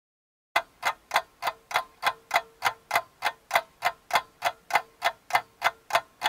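Clock ticking steadily, about three ticks a second, starting about half a second in: a sound effect marking the 20 minutes of oven time.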